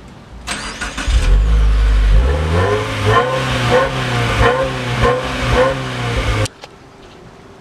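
A car engine and exhaust revving, rising in pitch, then holding steady before cutting off suddenly about six and a half seconds in.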